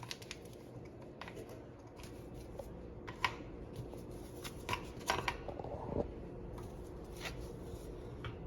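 Hands handling plastic Keurig coffee pods at a pod holder: scattered light clicks and taps with a soft rustle, over a faint steady hum.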